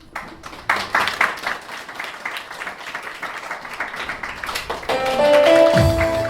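Audience clapping after a child's recitation, then recorded music starting about five seconds in.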